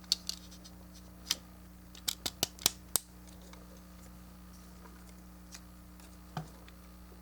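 Sharp clicks and taps of hard plastic model-kit parts being handled and snapped together: the Raider Gundam's jetpack pegs pressed into the holes on its back. A cluster of about eight clicks comes in the first three seconds and one more near the end, over a faint steady hum.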